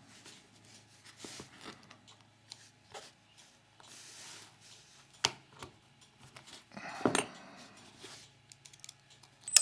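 Small metal tools scraping and clicking against a padlock as tiny C-clips are pried off, with a few sharper clicks in the middle and a sharp metallic ping at the very end as a clip springs loose.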